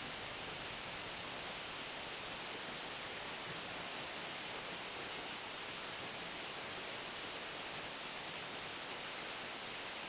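Steady rainfall, an even hiss of many drops with no distinct individual hits.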